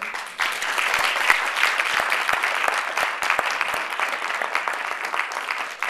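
An audience applauding. The clapping swells quickly at the start and thins slightly toward the end.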